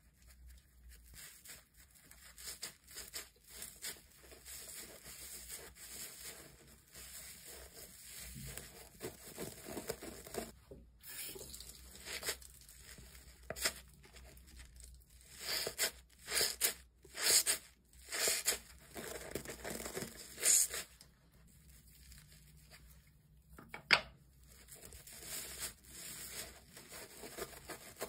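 A wet makeup sponge rubbed against a bar of Dalan soap, then squeezed and worked in soapy hands: irregular wet, crackling squishes of lather. The sounds are soft at first and grow louder, with a cluster of sharp squeezes past the middle and one more sharp one later.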